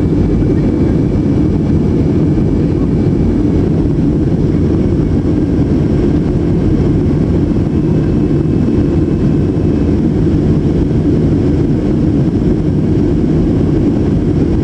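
Steady loud roar of a jet airliner's engines and rushing air heard from inside the cabin during the climb after takeoff, with a faint high whine that comes and goes.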